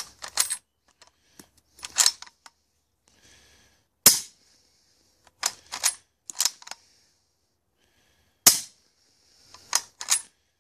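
Two shots from a .30-06 rifle with an integral suppressor, about four seconds apart, each a sharp crack that dies away quickly. Between and around the shots come several clusters of short clicks.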